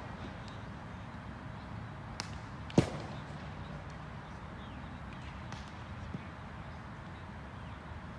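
A single sharp crack about three seconds in, with a few fainter clicks, over steady background noise.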